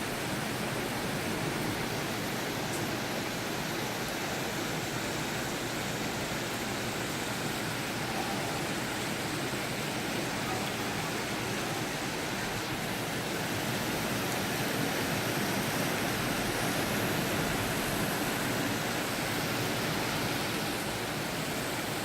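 Steady, unbroken rushing noise of wind and water at a beach during a storm, with no thunderclaps or other sudden sounds.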